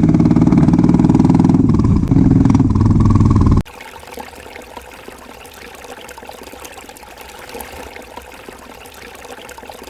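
A loud, low engine sound at a fairly steady pitch cuts off abruptly about three and a half seconds in, giving way to a much quieter, steady rushing hiss.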